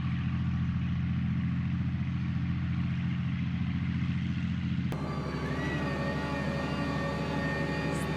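A heavy vehicle's engine running steadily. About five seconds in, the sound switches abruptly to a different engine sound with a steady high whine over it.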